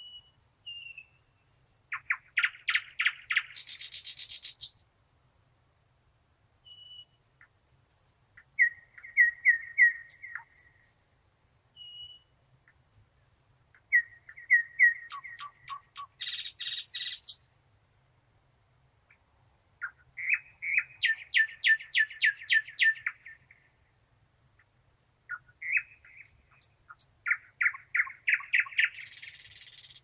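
Thrush nightingale singing: five phrases of fast-repeated clicking and whistled notes ending in harsh rattles, each lasting two to five seconds with short pauses between, and a few single high notes in the gaps.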